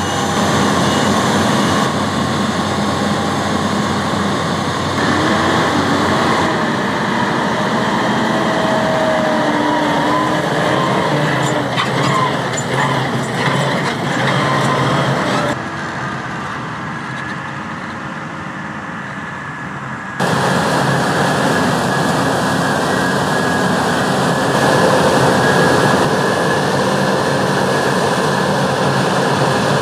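Heavy diesel harvest machinery, a combine harvester and grain-trailer tractors, running steadily at work. The sound changes abruptly several times as the shots cut, with a wavering whine through the middle stretch.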